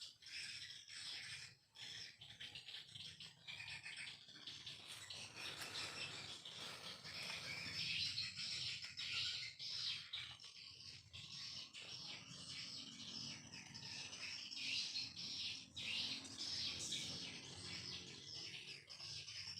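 Dense, continuous twittering chirps of swiftlets: a 'leher jerapah' lure call, the kind of recording played in swiftlet houses to attract edible-nest swiftlets to roost and nest.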